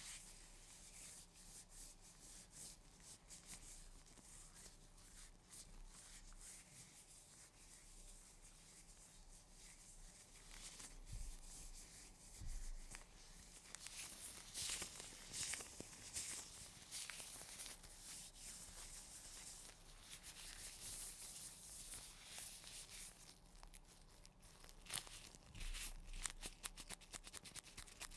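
Gloves being rubbed and handled close to the microphone, making quiet, crisp crackling and rustling that grows busier and louder about a third of the way in and again near the end.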